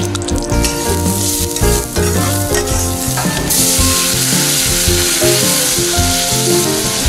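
Vegetable stock poured from a jug into a hot stainless steel saucepan of rice fried in olive oil, sizzling loudly from about halfway in as it hits the pan while the rice is stirred. Background music with a steady beat plays under it.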